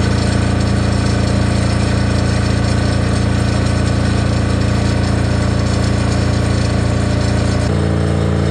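Mosa GE 6000 SX/GS welding generator's single-cylinder Yanmar diesel engine running steadily at constant speed, an even, loud drone measured at about 83 dB close up. It is running on GTL fuel, on which the owner finds it runs quieter. Near the end the deep part of the sound thins as it is heard from farther back.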